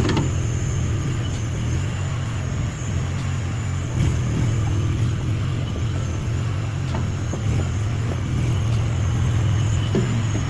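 Chinese mini skid steer's engine running steadily: a low, even rumble with a thin high whine over it and a few light knocks.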